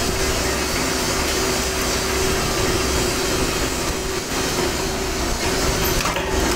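Flywheel-driven power press running steadily, a constant mechanical noise with a steady hum from its motor and spinning flywheel.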